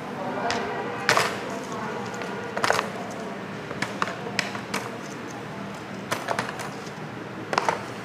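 Wooden ice-cream sticks clicking and clattering against each other and the tabletop as they are picked up and dropped: irregular sharp clicks, a few in quick clusters.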